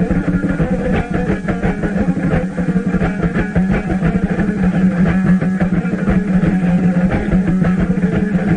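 Instrumental music: plucked string instruments playing a rhythmic passage over a steady low held note.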